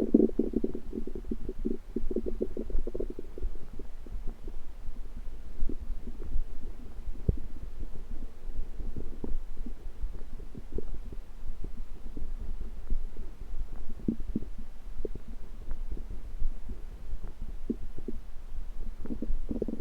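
Human stomach rumbling: a gurgling rumble in the first few seconds, then scattered small gurgles and clicks, and another rumble near the end, over a steady low hum.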